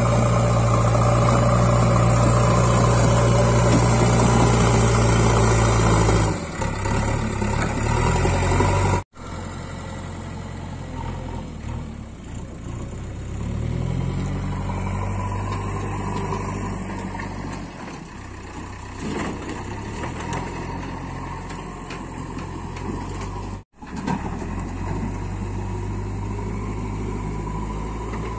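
JCB 3DX backhoe loader's diesel engine working under load while it pushes and lifts soil with its front bucket. It runs loud and steady for the first six seconds or so, then quieter, revving up and down. The sound cuts out briefly twice, at about 9 and 24 seconds in.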